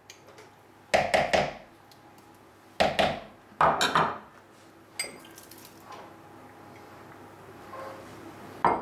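A spatula scraping and knocking low-fat quark out of a plastic tub into a plastic mixing bowl: three short bursts of clatter in the first four seconds, then a single sharp click about five seconds in.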